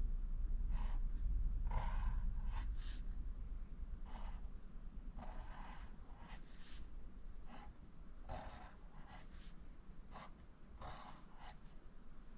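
Pencil writing on notebook paper: a string of short, dry scratching strokes with uneven gaps, as uppercase J's are printed one after another.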